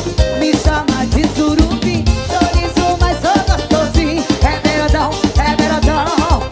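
Upbeat beiradão dance music from the Amazon: a steady drum beat under a lead melody that slides and bends in pitch.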